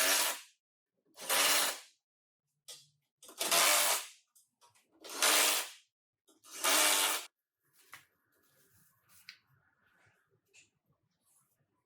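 Five short bursts of hissing compressed air, about one every one and a half seconds, from an air tool in a body shop; then only faint scattered sounds.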